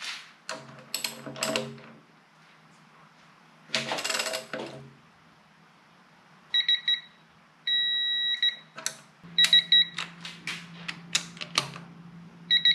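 Digital torque adapter on a ratchet beeping as the transmission pan bolts are tightened to 65 inch-pounds. It gives short beeps as the torque builds, then a long steady beep when the set torque is reached, twice, with ratchet clicks in between.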